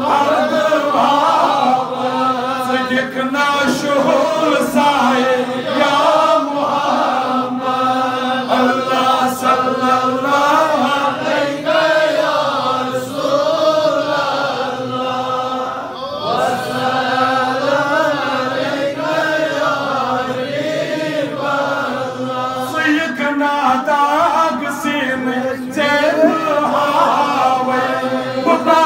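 Male voices chanting salawat, the Islamic blessing on the Prophet, in a slow melodic refrain with long, wavering held notes, carried through the mosque's loudspeaker system.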